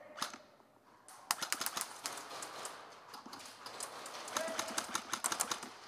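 Airsoft gunfire: bursts of sharp, rapid clicks from shots and BBs hitting plywood and pallet walls. One burst comes about a second in and another near the end.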